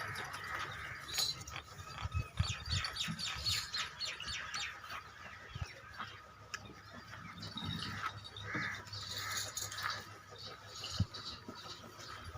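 Small birds chirping: many quick, high chirps, with a few dull knocks mixed in.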